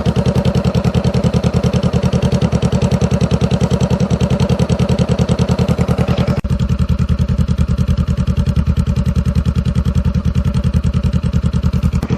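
2018 Honda CBR500R parallel-twin engine idling steadily through an aftermarket shorty GP slip-on exhaust, with a rapid, even beat of exhaust pulses. There is a brief break about halfway through.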